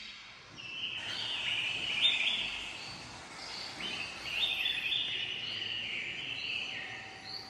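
Recorded birdsong played back: several overlapping chirping and warbling phrases.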